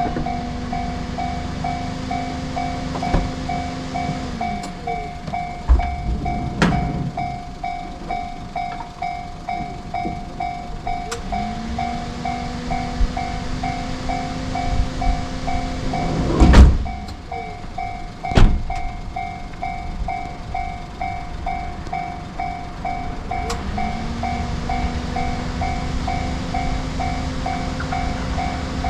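Japanese railroad-crossing warning bell ringing in a fast, even pulse. A lower tone slides up, holds for a few seconds and falls away three times. Under both are a train's rumble and scattered sharp knocks, the loudest about two-thirds of the way through.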